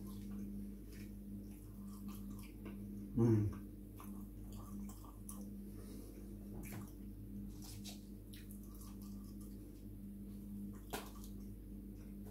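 Close-up chewing of soft chunky chips, with faint wet mouth clicks and lip smacks, over a steady low hum. A short, louder low sound comes about three seconds in.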